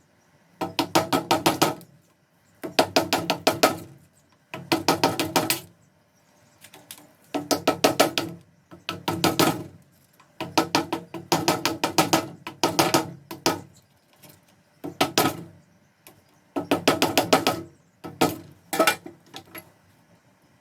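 Bursts of rapid clicking, each about a second long, repeating roughly every two seconds in a steady work rhythm.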